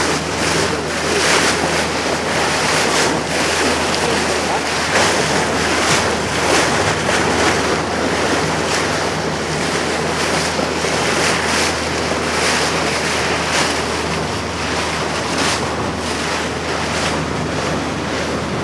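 Small motorboat underway: a steady low engine drone under heavy wind buffeting on the microphone and water rushing and splashing past the hull.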